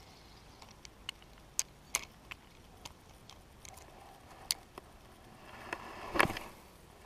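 Scattered sharp clicks and taps of a spinning rod and reel being handled, with a louder knock and a brief rustle about six seconds in.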